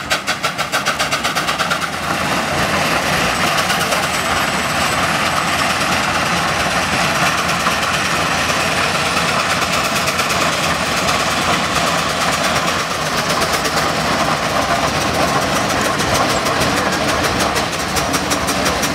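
Minneapolis steam traction engine working under load as it pulls a plow: rapid, even exhaust chuffs at first, merging after a couple of seconds into a continuous rush of exhaust and machinery.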